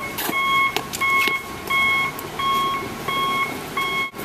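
An electronic beeper sounding a steady series of short, even beeps, about three every two seconds.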